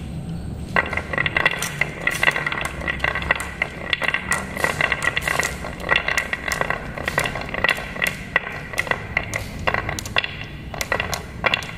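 Glass marbles rolling down a carved wooden zigzag track, rumbling in the grooves and clicking against one another as they pile up at the bottom. The rapid clinking starts about a second in and keeps up throughout.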